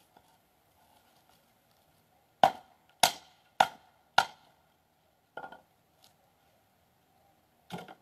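Axe strikes splitting kindling on a wooden chopping block: four sharp, loud chops in quick succession about half a second apart, a lighter knock a second later, and one more chop near the end.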